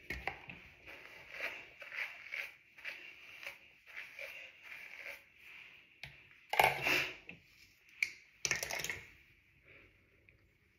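Curly hair rustling and crackling as a comb and hands work through it: a run of short strokes, then two louder rustles in the second half.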